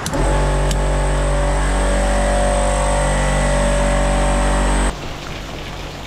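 A loud, steady mechanical hum at one fixed pitch that cuts off abruptly about five seconds in, followed by rain falling.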